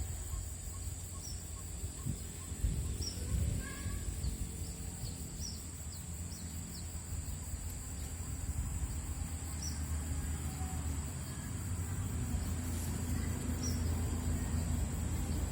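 Outdoor ambience at a rural pond: a steady, high-pitched insect drone with short bird chirps here and there, over a constant low rumble of wind or handling on the microphone.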